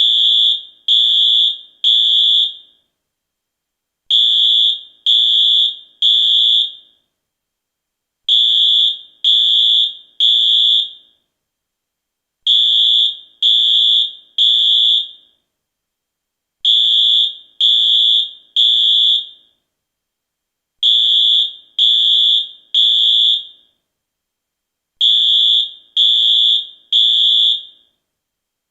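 US fire alarm sounding the temporal-three evacuation signal: high-pitched electronic beeps in sets of three, each beep about half a second long, with a pause of about a second and a half between sets, repeating seven times.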